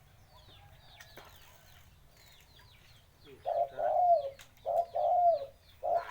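Dove cooing: after about three seconds of faint high chirps, a dove gives three loud coo phrases in quick succession, each a short bent, pulsing note.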